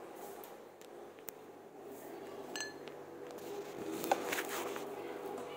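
A metal spoon scraping and clinking against a metal kadai while stirring fried paneer, onions and spices: scattered light clinks and scrapes, the loudest about four seconds in.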